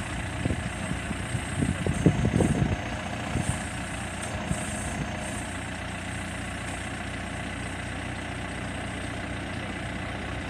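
Backhoe loader's diesel engine running steadily at idle, with a series of low thuds and clunks in the first three seconds.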